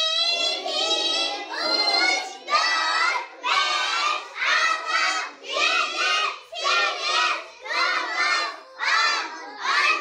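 A class of young children chanting in unison, calling out one word about every second, as when reciting numbers together.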